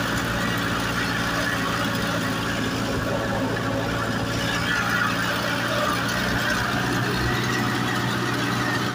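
Farm tractor's diesel engine running steadily as the tractor drives along, heard from on board close to the engine and rear wheel.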